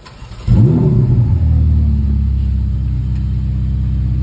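Ferrari F8's twin-turbo V8 starting up: a brief crank, then the engine catches about half a second in with a rev flare that rises and falls, and settles into a steady idle.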